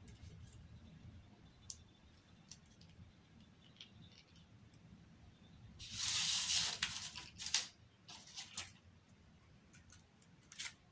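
Crepe-paper leaves on wire stems rustling and crinkling as they are handled, with scattered small clicks; a louder rustle lasting about a second comes about six seconds in, followed by a few shorter ones.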